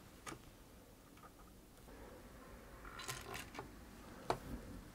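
A screwdriver working the small mounting screws of a sewing machine's electronic circuit board: faint clicks and scrapes of the blade on the screw heads. One click comes near the start, a scratchy cluster about three seconds in, and a sharper click near the end.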